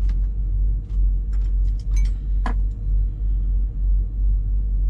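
A steady low rumble, with a few short clinks of a utensil against a small cooker pot as boiled dumplings are scooped out.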